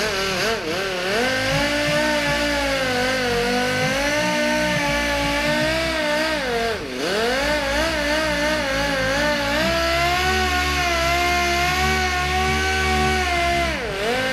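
Random orbital sander with a 3M Trizact foam abrasive disc running dry on a car door's clear coat, a steady whine that wavers in pitch and dips sharply twice, about halfway through and near the end. It is the first step of colour sanding, cutting the orange peel flat.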